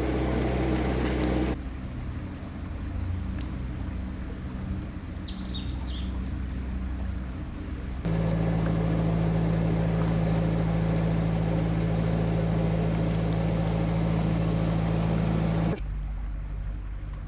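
Narrowboat engine running steadily under way. Its level and tone change abruptly about a second and a half in, again about eight seconds in, and near the end. A bird gives a few short high calls in the first half.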